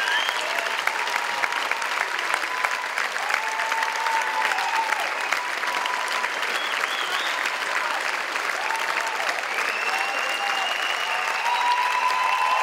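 A theatre audience applauding steadily at a curtain call: a dense, continuous patter of many hands clapping.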